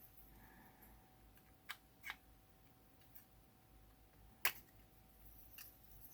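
A few faint, sharp clicks and taps of small parts being handled during disassembly of a bench multimeter's front panel, the loudest about four and a half seconds in, against near silence.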